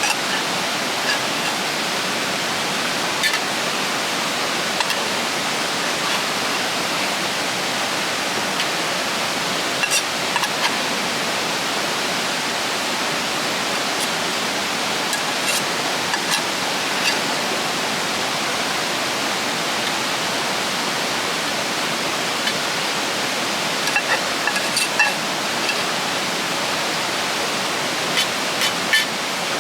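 A river rushing steadily over rapids, with a few scattered short clicks.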